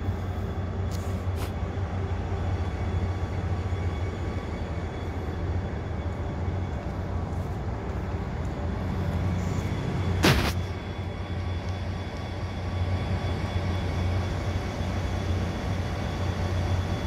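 Korail 7400-class diesel locomotive rumbling as it draws into the station with a freight train, a steady low engine drone. A single sharp knock sounds about ten seconds in.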